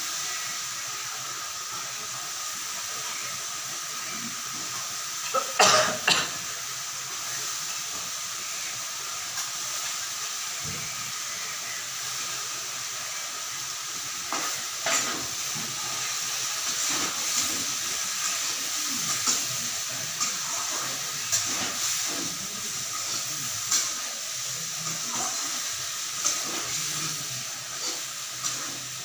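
Vegetables frying in a steel kadai on a gas stove: a steady sizzling hiss, with a metal ladle scraping and clinking against the pan as it stirs from about halfway on. A loud clatter about six seconds in.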